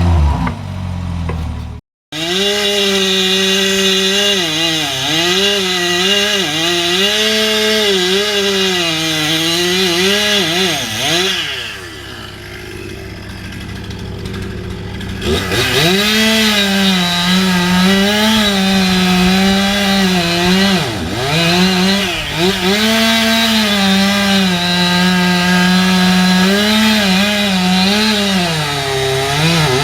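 Chainsaw running at high revs and cutting wood, its pitch repeatedly dipping and recovering as the chain loads up in the cut. It eases off for a few seconds in the middle, then comes back up to speed and cuts again.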